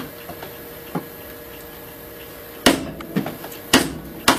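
A steel chisel being struck into a hardwood plane body to pare out a screw hole: two light taps, then three sharper knocks in the second half.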